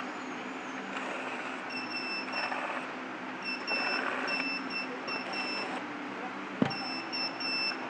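Short, high electronic beeps repeating about twice a second at uneven spacing over a low steady hum, with two brief bursts of noise and one sharp click about two-thirds of the way through.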